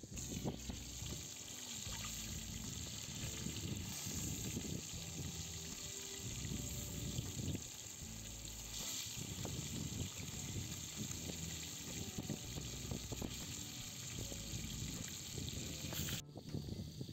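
Flour-dredged fish frying in hot oil in a cast-iron kazan, a steady sizzle that cuts off suddenly near the end.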